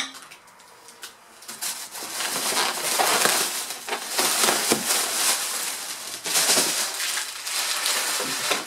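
Plastic bubble-wrap packaging crinkling and rustling as it is handled and pulled away, a dense crackle of small clicks that starts about a second and a half in.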